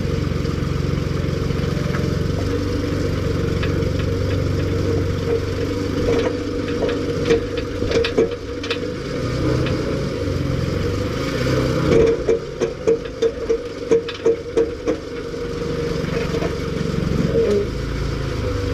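Jeep engine running at low speed, with a run of sharp knocks and clatter in the middle, most regular near the end at about two or three a second.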